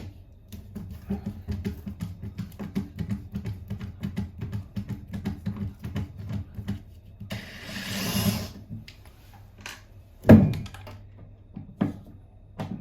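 Knocks and clicks of hand work in a small tiled room over faint background music, with a short hiss about seven seconds in and one loud thunk about ten seconds in.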